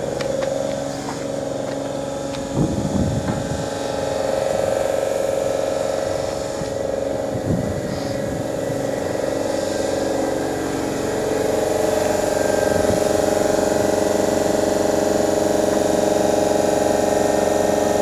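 Steady hum of a Great Northern Class 313 electric train standing at the platform, several tones held together. A couple of short knocks come about three and eight seconds in, and the hum grows a little louder about twelve seconds in.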